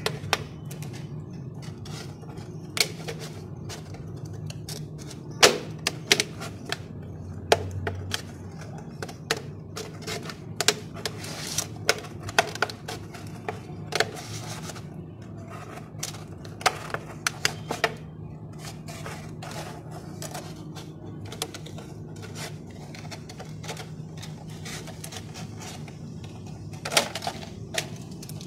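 Pink utility knife cutting through a thin plastic bottle: irregular sharp clicks and crackles of the blade and the crinkling plastic, some louder snaps among them, over a steady low hum.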